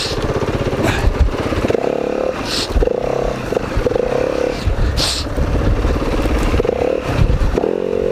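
Dirt bike engine revving up and dropping back again and again as it is ridden along a trail, with a few brief scrapes mixed in.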